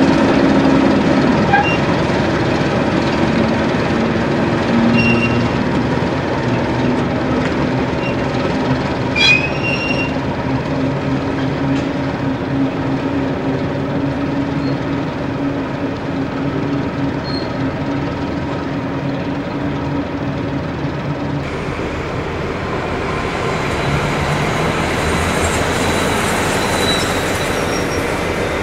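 A train running on the line with steady wheel-on-rail noise under a low machine note, a brief high wheel squeal about nine seconds in, and a hiss that builds near the end.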